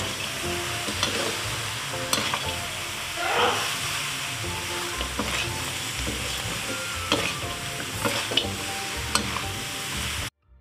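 Sauce sizzling in a hot wok as fried mantis shrimp are stirred and tossed with a spatula, the spatula scraping and clicking against the wok. The sound cuts off suddenly near the end.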